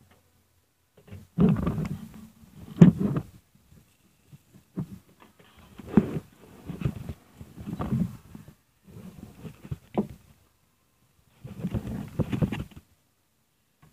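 Handling noises as a small wooden block and other objects are moved about and set down on a cloth-covered table. There are several irregular bouts of muffled rubbing and shuffling, with a few sharp knocks, the loudest about three seconds in.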